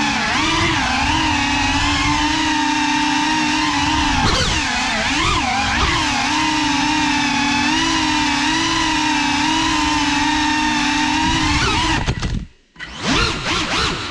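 GEPRC Cinelog 35 cinewhoop's brushless motors and propellers whining, the pitch rising and falling with the throttle. About twelve seconds in the throttle is cut and the sound drops almost to nothing for a moment before the motors spool back up.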